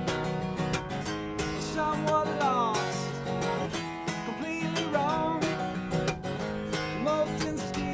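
Acoustic guitar being strummed in a steady rhythm, with a melodic line gliding above the chords.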